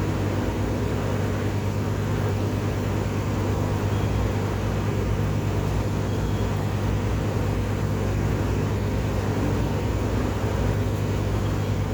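Stick welding with 7018 rod: a steady arc crackle and hiss over a constant low hum.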